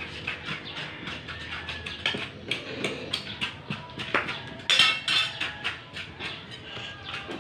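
Irregular wet scraping and clicking of hands rubbing and pulling hair off a scalded goat carcass on a tiled floor. A brief high-pitched call cuts in about five seconds in.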